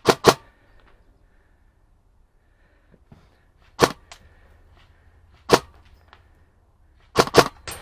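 Airsoft guns firing single sharp shots: two in quick succession at the start, one about four seconds in, another about a second and a half later, then a quick cluster near the end.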